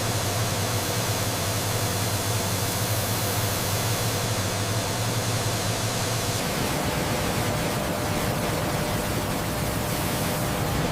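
Steady, even noise of grain-cleaning machinery running in a flour mill, with a low hum underneath that drops away about six seconds in.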